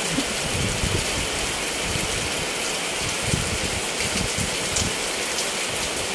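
Heavy tropical downpour: a steady hiss of rain on wet pavement and shelters, with irregular low thuds mixed in.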